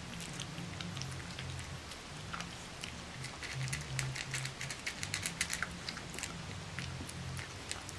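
Boston Terrier puppies eating dry kibble from a metal pan: a busy patter of small crunches and clicks as they chew and nose the kibble against the pan, thickest about halfway through.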